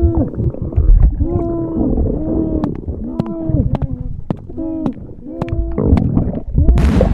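Added sound-effect belly noises: a continuous low stomach rumble with pitched gurgling groans that bend up and down in pitch, broken by sharp little clicks. A short hissing burst comes near the end.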